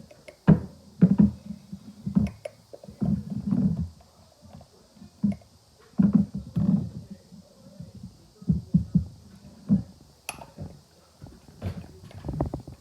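Shaving cream foam squelching in irregular, short wet squishes as a cup of it is scooped into the bowl and worked, with a sharper click a little after ten seconds in.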